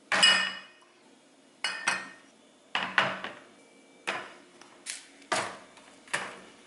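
Bottles and jars being set down one after another into a clear plastic turntable organizer, about nine sharp knocks and clinks, a few of them ringing briefly.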